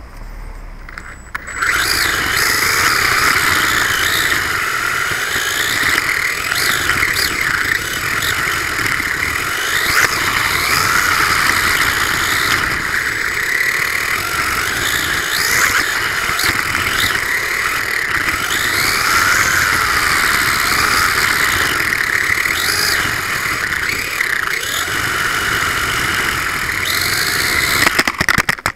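Losi 1/24-scale brushless RC car driving hard over rough pavement, heard through a camera riding on the car: a loud, dense rush of motor whine, gear and tyre noise whose pitch rises and falls with the throttle. It starts suddenly about a second and a half in, and ends near the end in a few loud knocks, then cuts off.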